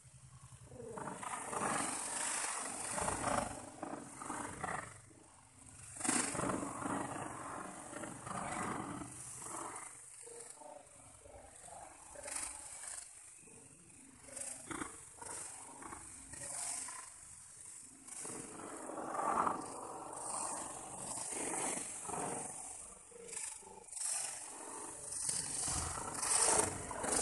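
Dry banana leaves and plastic sacks rustling and crumpling in irregular bursts as the leaves are stuffed into the sacks. The audio is slowed down, so the rustling sounds drawn out and deep.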